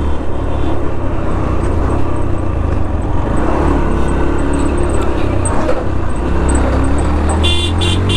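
Motorcycle running at highway speed, with wind rumbling on the microphone over the engine note. A vehicle horn honks twice near the end.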